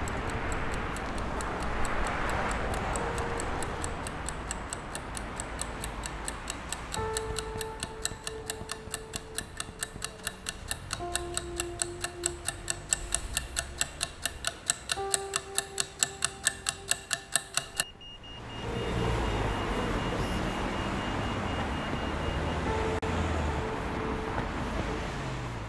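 A clock ticking at an even pace, about two to three ticks a second, growing louder, under a slow melody of held notes. The ticking stops abruptly about two-thirds of the way in, giving way to a low rumbling drone.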